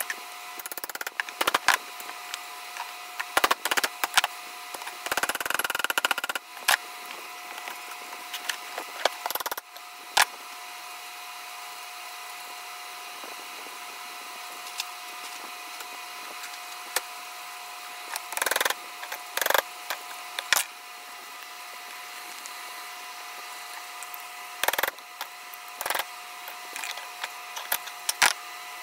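Hammer striking a chisel in short irregular knocks, chipping the remains of the old wooden handle out of the eye of a double-bit axe head clamped in a vise. A steady hum runs underneath.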